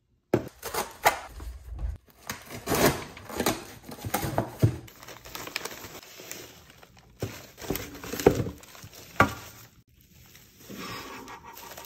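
Cardboard boxes being opened and bubble-wrapped parts pulled out: cardboard scraping and flaps rustling, with plastic bubble wrap crinkling in uneven crackles.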